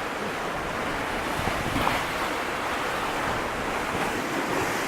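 Strong wind gusting over the microphone: a steady rushing noise that sounds like surf.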